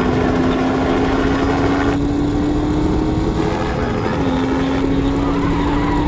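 Car engine pulling hard under acceleration, its note climbing steadily, dropping as it shifts up about four seconds in, then climbing again.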